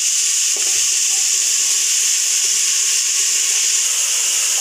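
Steady sizzling of an onion-tomato masala frying in oil in a pressure cooker as chopped ridge gourd is added, with a light knock about half a second in.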